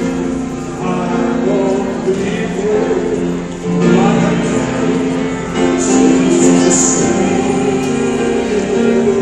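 Choir singing gospel music with instruments, in long held chords that change every second or so.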